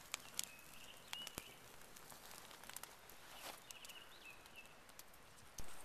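Wood campfire crackling, with scattered sharp pops under a trout cooking on rocks over the flames. Two short, high whistling tones come about a second in and again about three and a half seconds in, and a single thump comes near the end.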